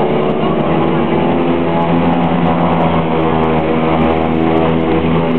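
Aircraft engines and propellers droning at high power during the take-off run, heard from inside the cockpit, the pitch edging up about a second or two in.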